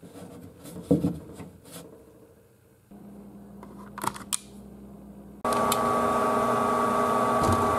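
Rubbing and a few clicks as a thermostat switch is set, then about five and a half seconds in a Fasco A170 furnace draft inducer motor starts suddenly and runs with a steady whine. It is a freshly installed replacement for a motor that had failed to a hum, and it runs smoothly.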